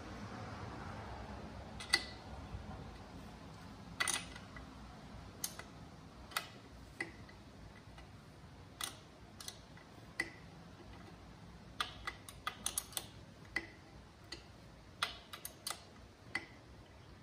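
Sharp metal clicks and taps of a wrench working the chain adjuster bolt on a dirt bike's swingarm as the bolt is turned to tighten the drive chain. The clicks come irregularly, each ringing briefly, and bunch into quicker runs in the second half.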